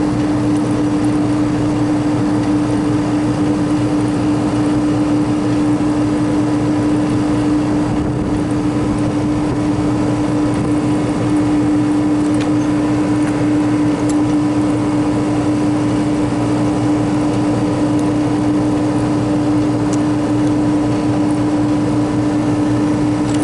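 Walk-in freezer condensing unit running: the compressor and condenser fan make a loud, steady hum with one strong even tone. The unit is running with high head pressure, which the technician suspects comes from plugged condenser fins or a slow fan.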